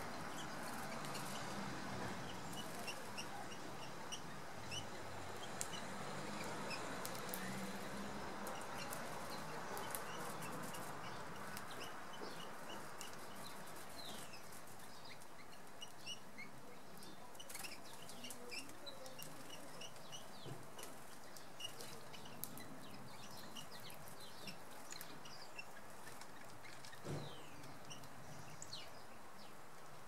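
Small garden birds calling with many short, high chirps and twitters, scattered through a steady outdoor background. Sharp clicks come here and there, with one stronger thump near the end.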